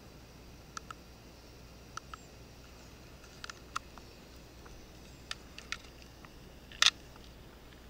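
Scattered small plastic clicks from the buttons of an RC car's LCD ESC program card and the handling of its plug lead, with a louder double click about seven seconds in.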